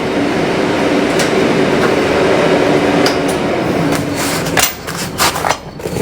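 Welding arc crackling steadily for about four and a half seconds, then stopping, followed by a few sharp metallic knocks and clicks.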